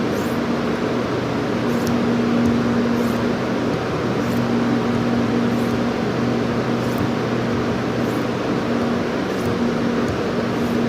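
Knife blade drawn in light, even strokes across a diamond sharpening stone, a faint scrape about every second and a quarter, nine or so in all, as the edge is finished. A steady mechanical hum runs underneath.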